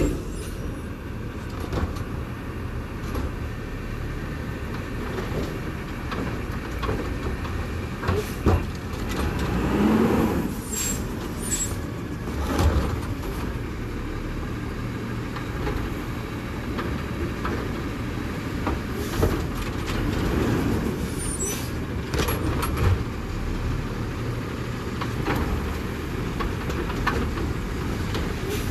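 Autocar ACX refuse truck with a New Way Sidewinder automated side-loader arm working: the truck's engine runs steadily while the hydraulic arm grabs, lifts and tips trash carts into the hopper. Several loud clanks and knocks come from the carts and arm, and the engine and hydraulics swell twice.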